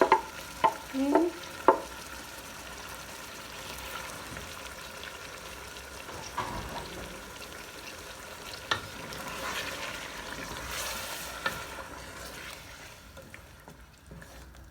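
Chicken, onions and blended tomato sizzling in a pot while being stirred, with a few short loud scrapes and knocks in the first two seconds and occasional faint clicks of the spoon against the pot.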